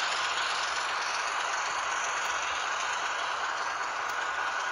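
HO scale model freight train running on the track: a steady rattle of small wheels on the rails.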